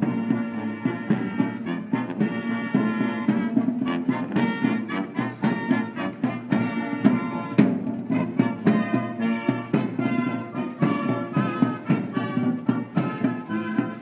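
Military brass band playing a slow piece, horns carrying the tune over a steady drum beat.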